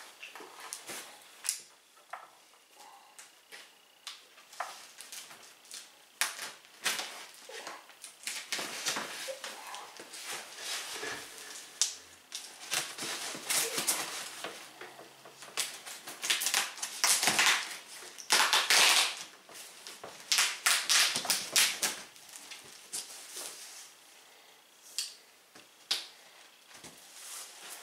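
A cardboard shipping carton being opened by hand and rummaged through: crinkling and rustling of packing material with many sharp clicks and knocks. It is sparse at first, busiest and loudest a little past the middle, and thins out near the end.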